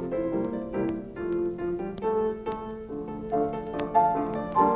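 Piano music playing a lively run of short, separately struck notes over a low held note.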